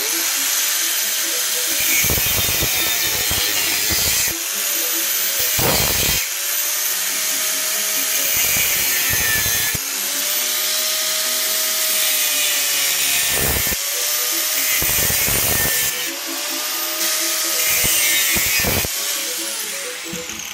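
Angle grinder with a cut-off disc cutting a square steel tube held in a vise: a loud, steady high whine and hiss, its tone sagging and recovering several times as the disc bites, then winding down in pitch near the end after switch-off.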